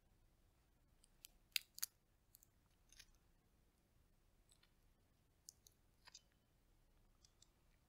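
Roasted chestnut shells being cracked and peeled by fingers: a scatter of short, crisp cracks and snaps, the loudest pair about two seconds in.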